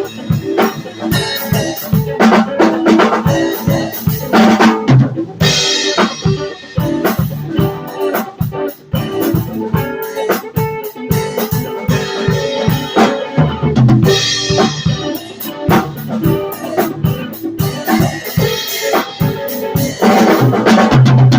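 Live band playing: a drum kit keeps a busy, steady beat of kick, snare and rimshots under sustained instrumental notes.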